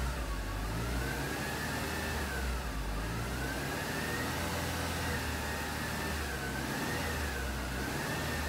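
2004 Mercedes C-Class W203 engine revved from idle, its pitch rising and falling several times as engine speed climbs to just over 2,000 rpm.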